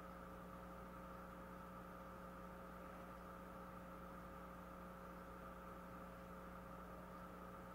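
Steady electrical hum over faint hiss, unchanging throughout: recording noise with no sound from the painting itself.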